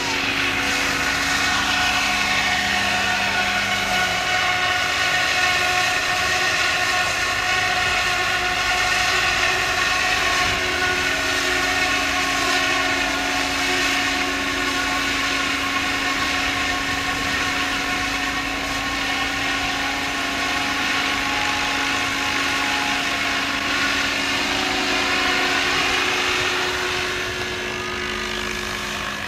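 Radio-controlled model helicopter flying aerobatic manoeuvres, its rotor and drive making a steady multi-toned whine. The whine rises in pitch over the first couple of seconds and drops again near the end.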